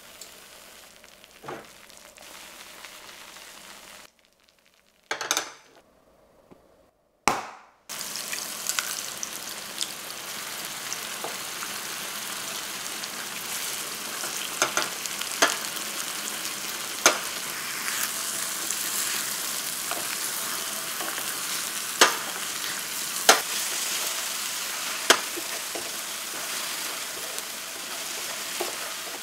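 Soft tofu and egg frying in oil in a nonstick pan: a steady sizzle that comes in strongly about eight seconds in, after a faint hiss and a short quiet gap. Sharp taps and scrapes of a wooden spatula against the pan sound as the egg is stirred.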